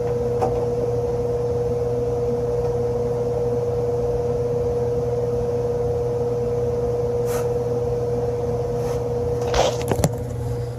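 Steady machine hum with a constant mid-pitched tone, broken by a few sharp knocks about a second before the end.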